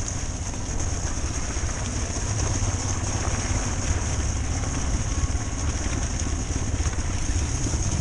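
Motorcycle engine running steadily as the bike rides slowly along a muddy, snowy dirt track, heard from a camera mounted on the bike, with a constant hiss over the low rumble.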